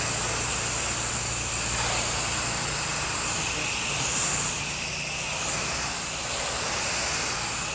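A 5-gallon-a-minute pressure washer running steadily, with the hiss of water spraying from its wand while soft-wash cleaner is downstreamed onto house siding.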